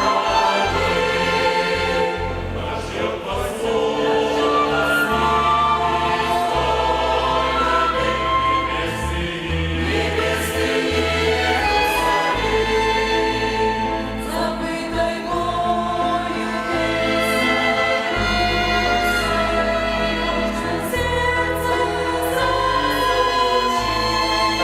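Church choir singing a hymn in several parts, accompanied by a violin ensemble, with held notes and a steady bass line underneath.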